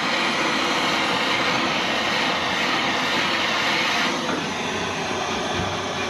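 Hand-held propane torch burning with a steady hiss as its flame heats thick old undercoating on a steel floor pan to soften it for scraping. The hiss grows quieter about four seconds in.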